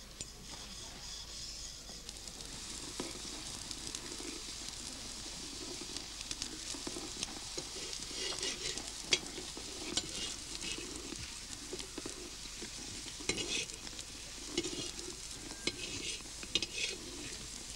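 Flatbreads cooking on a flat iron griddle over a wood fire: a steady sizzling hiss, with a metal spatula scraping and tapping against the griddle in short runs of clicks as the breads are turned.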